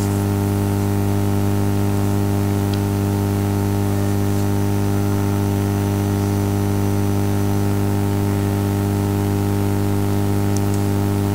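Steady electrical hum with a stack of evenly spaced overtones over constant hiss: mains hum and noise picked up in the narration microphone's recording chain, with a couple of faint clicks.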